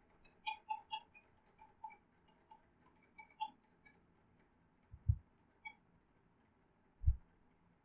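Faint, irregular clicking of a computer mouse, a dozen or so clicks over the first four seconds, followed by two dull low thumps about five and seven seconds in.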